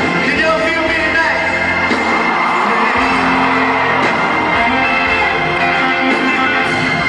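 Live rock band in concert, an electric guitar playing over sustained band chords, with the crowd cheering and whooping.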